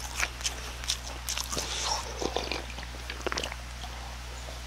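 Close-miked chewing and lip-smacking of someone eating a crispy pan-fried potato pancake, a run of small scattered wet clicks.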